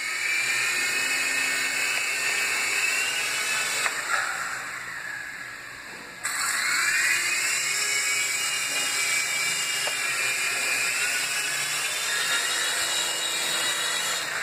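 Toy remote-control helicopter's small electric motor and rotor whining. It runs steadily, winds down about four seconds in, then starts again sharply about six seconds in with a rising whine, runs steadily and cuts off near the end.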